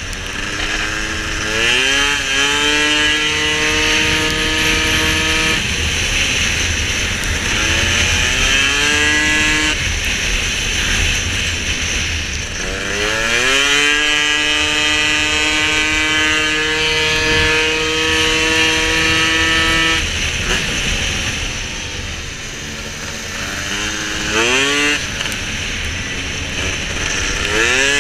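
Piaggio SKR racing scooter's two-stroke engine at full throttle, its revs climbing quickly and then holding at a steady high pitch as the automatic transmission takes up speed. The revs drop off and build up again several times, as for the corners of the track.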